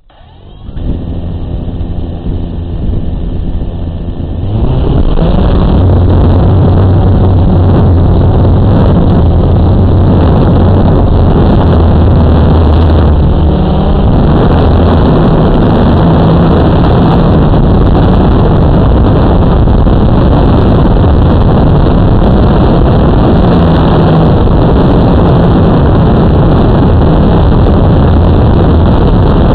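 Blade 350 QX2 quadcopter's four brushless motors and propellers, heard from its onboard camera. They spin up to idle on the ground with a steady hum, then throttle up sharply about four seconds in for take-off. After that they run loud and steady in flight, their pitch shifting slightly as the drone manoeuvres.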